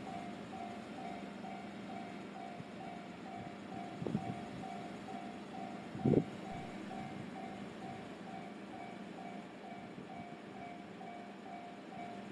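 Japanese railway level-crossing warning bell ringing, an electronic ding repeated in a steady, even rhythm. Two brief low thumps come about four and six seconds in, the second the louder.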